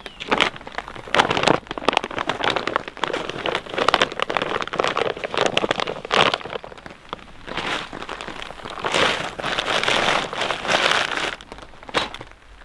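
Camping gear being handled and packed up, rustling and crinkling in uneven bursts.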